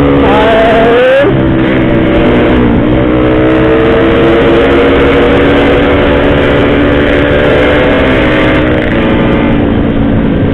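Yamaha RX-King's 135 cc single-cylinder two-stroke engine pulling while riding: the revs rise over about the first second and drop at a gear change, then climb slowly for several seconds before easing off near the end.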